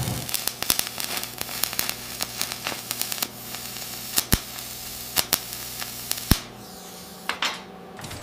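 Electric arc welding: a steady crackling hiss with a faint electrical hum and irregular sharp pops, a few of them louder. It dies down near the end.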